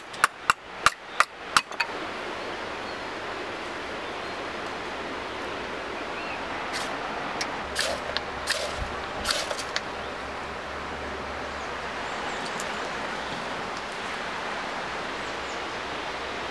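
A quick run of about six sharp knocks in the first two seconds, then a fire of wood shavings and splinters crackling and popping in short bursts around the middle, over a steady background hiss.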